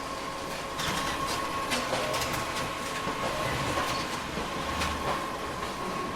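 Photocopier with a booklet-making finisher running: a steady mechanical hum with a constant whine, and a run of clicks and clatters from about a second in until near the end.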